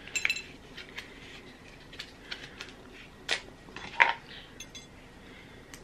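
Scattered light clicks and taps of hardened chocolate pieces from a candy kit being handled and pulled apart by hand, the sharpest click about four seconds in.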